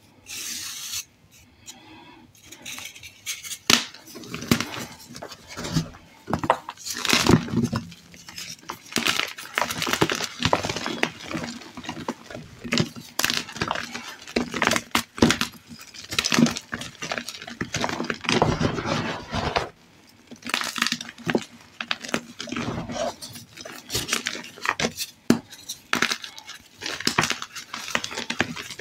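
Dyed gym chalk, reformed chalk hearts and blocks, being crushed and crumbled by hand: dry, irregular crunching and crackling with a powdery rustle, softer for the first few seconds.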